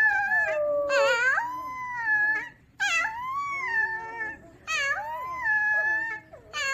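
Small puppy howling: three long howls of about two seconds each, the pitch gliding up, wavering and falling, with short breaks between them and another howl starting near the end.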